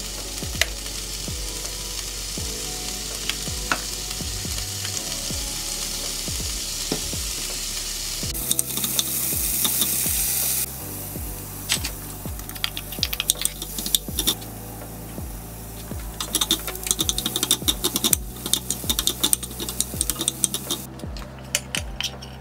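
Red peppers and chickpeas sizzling in a frying pan on a gas hob while a utensil stirs them. The sizzle swells for a couple of seconds around the middle, then the second half is full of quick clicks and scrapes of the utensil against the pan.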